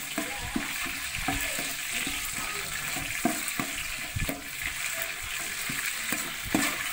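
A hand stirring bay leaves and whole spices in water in an aluminium pot, with irregular splashes and knocks against the metal. A steady hiss from the wood fire under the pot runs beneath.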